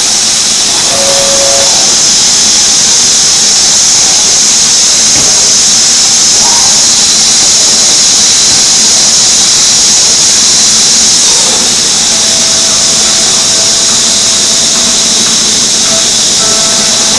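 Five-axis CNC router spindle cutting a wooden door panel: a loud, steady high-pitched hiss.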